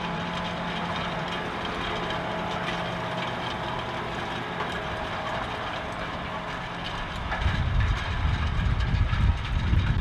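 Large John Deere wheeled tractor's diesel engine running steadily under load while pulling a disc cultivator through dry soil, the discs adding a rushing, rattling noise. About seven seconds in an uneven low rumble grows louder.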